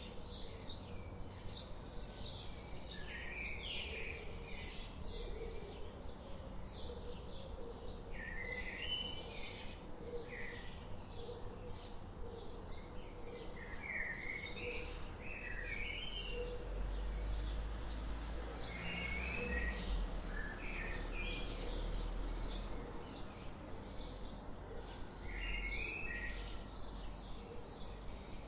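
Several birds chirping and calling without pause: many short, high chirps and stepped song phrases. Underneath is a steady low background rumble that grows louder in the middle.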